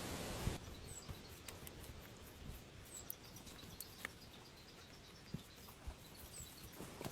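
Quiet forest ambience with a few brief, high chirps from a small bird and scattered faint clicks, after a short burst of rustling at the start.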